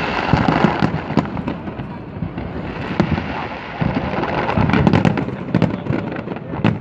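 Aerial fireworks going off in a dense barrage: booming shell bursts mixed with rapid crackling, thickening from about four seconds in.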